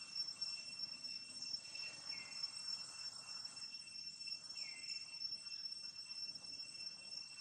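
Steady, high-pitched drone of insects: two even tones held without a break, with two short falling chirps from another small creature about two seconds and four and a half seconds in.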